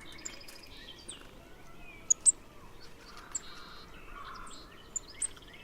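Golden-crowned kinglet giving very thin, high-pitched call notes, a few at a time, the loudest pair about two seconds in. Other birds sing faintly behind it.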